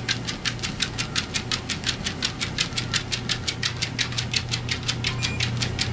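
Electric treadmill motor humming steadily while a Cardigan Welsh Corgi's paws strike the moving belt in a fast, even rhythm of about seven footfalls a second, the dog keeping pace at 4 miles per hour on a slight incline.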